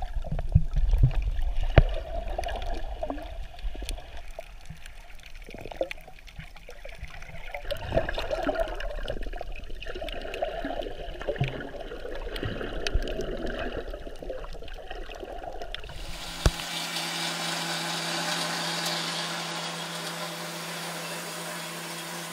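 Underwater sound heard through an action camera held by a swimmer: muffled water rushing and bubbling, with heavy knocks and rumble in the first two seconds. About sixteen seconds in it cuts abruptly to a steady hiss with a low hum.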